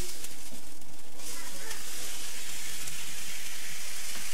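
Food frying in a pan, a steady sizzle.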